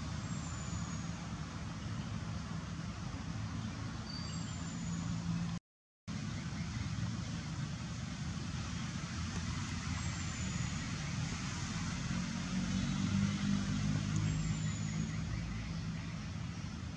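Steady low rumble of a running vehicle engine, swelling a little about twelve seconds in, with a few faint short high chirps over it. The sound cuts out for a moment about six seconds in.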